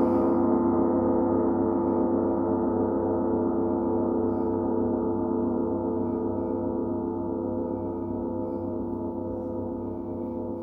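Large Paiste gong ringing on after a strike, a dense cluster of steady tones slowly fading away.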